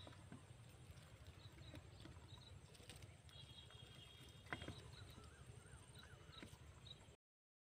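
Near silence: faint outdoor ambience with a low rumble and scattered faint high chirps, a single sharp click about halfway through, and the sound cutting out completely just before the end.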